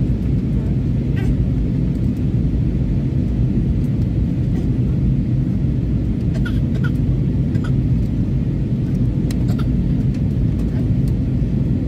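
Steady low rumble of an Airbus A320neo's cabin noise on approach, engines and airflow heard from a window seat, with a few faint clicks.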